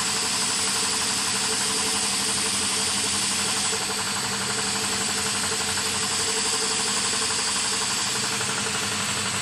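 Laboratory air compressor running steadily, with a constant hiss of compressed air bleeding out through the partly opened air receiver valve, set to hold the receiver at a constant pressure. The hiss dips slightly about four seconds in.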